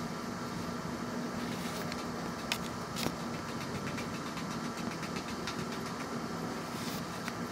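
Kubota BX1850 compact tractor's three-cylinder diesel engine running steadily, with two sharp clicks about half a second apart a little before the middle.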